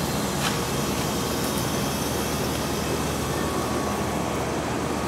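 Outdoor air-conditioning condenser unit running: a steady low hum under an even rush of fan air.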